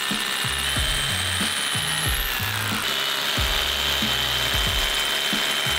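A drill bores into the concrete floor through a fence post's base plate while a shop vacuum nozzle held at the bit sucks up the dust: a steady, loud whooshing with a high whine. Background music with a bass line plays underneath.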